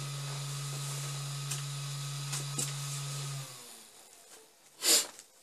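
Solidoodle 3D printer running with a steady low hum, a faint high whine and a few light ticks. The hum dies away about three and a half seconds in as the machine stops at the end of the print, and a brief loud rush of noise follows near the end.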